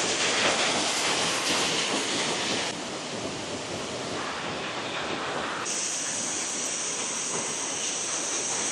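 Waterfall rushing: a steady, dense roar of falling water that changes character abruptly about three seconds in and again near six seconds, as one set of falls gives way to another.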